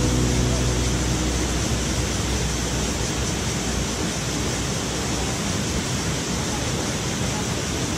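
Small mountain waterfall running with little water, a steady rush of water falling into a rocky pool and stream. Background music fades out in the first second.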